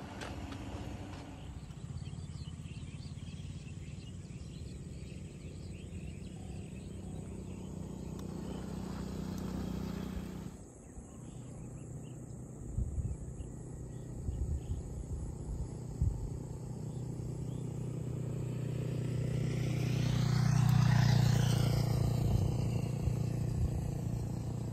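Motor vehicle engine running steadily, its note dropping lower about ten seconds in. About twenty seconds in another vehicle passes close by, swelling and fading; it is the loudest moment.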